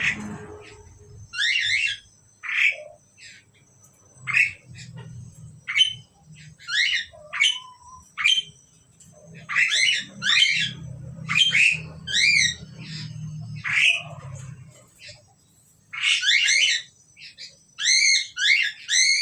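Asian pied starlings calling: a long run of short, harsh, chattering calls, often two or three in quick succession, separated by brief pauses.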